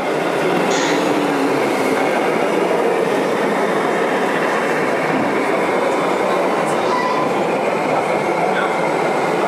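Steady running noise of radio-controlled model trucks driving, even and unbroken, with no single event standing out.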